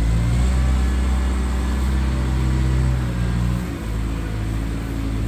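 Skid steer engine running steadily at a low, even note, which eases off slightly a little past the middle.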